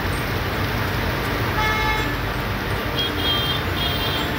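Heavy rain and road traffic on a waterlogged street: a steady hiss of rain and tyres through standing water. A vehicle horn toots briefly about halfway through, and a higher, shrill tone sounds in short repeated spurts near the end.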